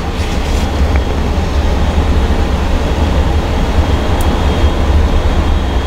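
Steady low rumbling drone with an even hiss above it, with a faint small tick about a second in and another near four seconds in.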